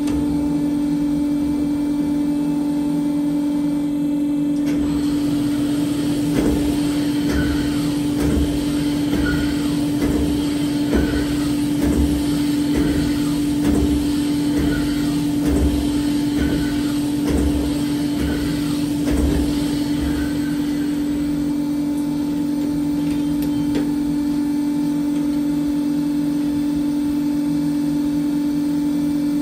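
Cylinder boring machine running with a steady motor hum; for about fifteen seconds in the middle, the tool working in the air-cooled cylinder's bore adds a rhythmic pulse about once a second, then the hum carries on alone.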